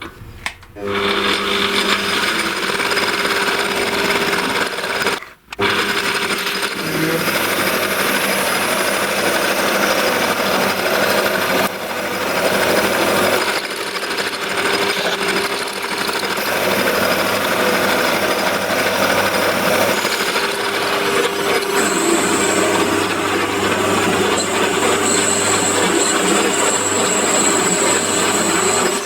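Electric power tool running steadily under load, with a steady motor hum. It starts just under a second in, cuts out for a moment about five seconds in, then runs again.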